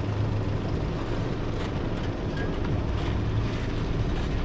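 Steady low drone of a vehicle driving, its engine and road noise running evenly.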